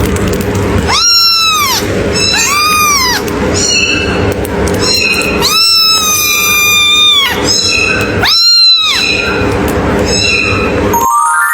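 A cat meowing again and again, high-pitched arching meows with one long drawn-out meow in the middle, over a steady background hum. A short electronic tone sounds near the end.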